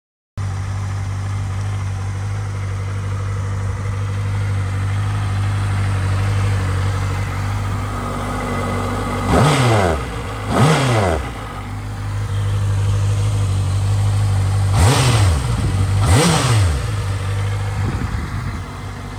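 A 2014 Honda CBR650F's inline-four engine idling steadily, blipped twice about halfway through and twice more a few seconds later, each rev rising quickly and falling back to idle.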